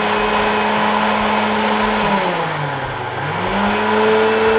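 Countertop jug blender puréeing cooked zucchini, leek and potato into a soup, its motor running steadily. About two seconds in the motor note drops, then speeds back up to its earlier pitch.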